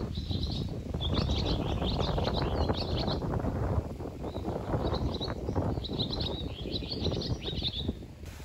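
Small birds twittering in quick bursts of high chirps, in two spells with a short pause near the middle, over a steady rumble of wind on the microphone.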